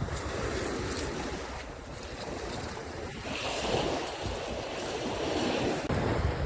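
Small waves washing up on the beach, swelling a couple of times, with wind buffeting the microphone.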